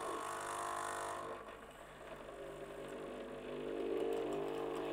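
Expressi Wave capsule machine's pump humming steadily as the machine is run to rinse it, dipping slightly about a second and a half in and then picking up again.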